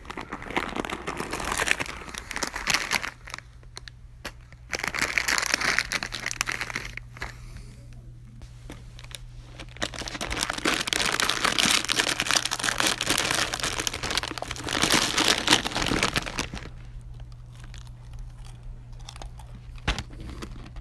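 Snack packaging crinkling loudly in three long bursts, the last and longest lasting about six seconds, followed by a few faint clicks.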